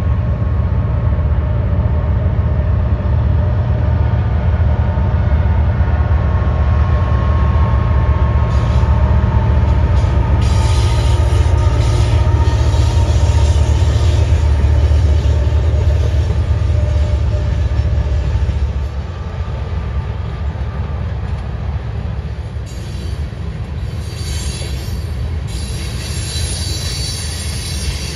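CPKC freight train rolling past with a heavy deep rumble and squealing wheels. The rumble drops off sharply about two-thirds of the way through, leaving the cars' wheel squeal and clatter, which grow shriller near the end.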